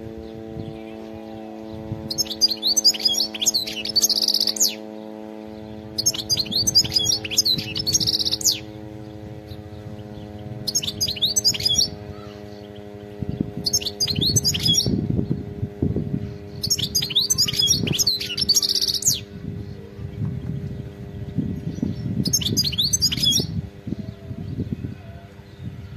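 European goldfinch singing: six twittering, trilling song phrases of about two to three seconds each, separated by short pauses. A steady low hum runs underneath.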